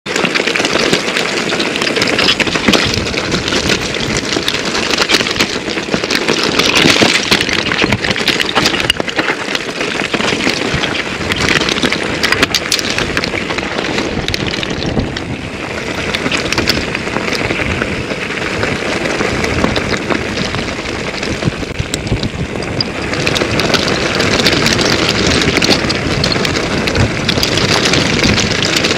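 Wind buffeting an action camera's microphone while a 2008 Intense Tracer mountain bike is ridden over rough, rocky trail: continuous tyre rumble with a dense stream of rattles and knocks from the bike.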